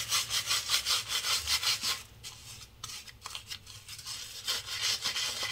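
Wilkinson shaving brush working Arko shaving-soap lather into beard stubble: a rapid, rhythmic bristly rubbing of about five strokes a second. It eases off in the middle and picks up again near the end.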